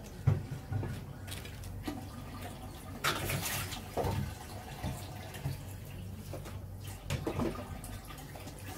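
Cabbage wedges dropped into a pot of beef broth, splashing several times. A low steady hum runs underneath.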